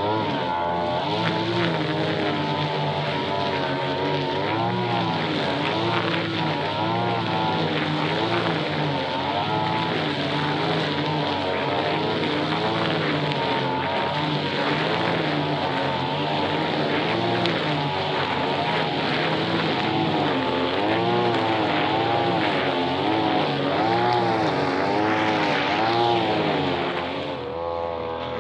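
Small petrol brush cutter engine running hard, its pitch rising and falling about once a second as the cutter works, easing off briefly near the end.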